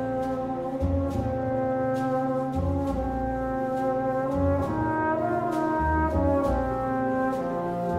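Orchestral title music: brass holds long chords over a low bass note that pulses about once a second.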